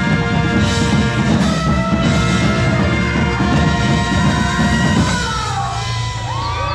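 Drum and bugle corps brass and percussion playing loud, sustained chords, with pitches sliding down and then sharply up in the last second or two.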